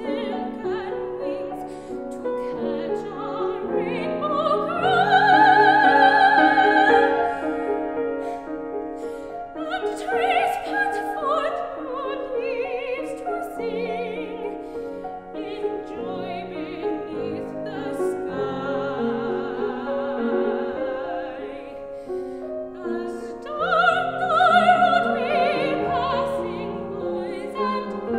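Soprano singing an art song with vibrato over grand piano accompaniment. Her loudest held high notes come about five seconds in and again near the end.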